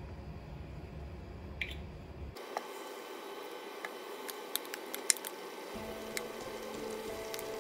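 Cooking oil is poured from a plastic bottle into a frying pan, a low rumble that cuts off abruptly about two seconds in. Then battered slices sizzle in the hot oil: a steady hiss with scattered sharp crackles and pops.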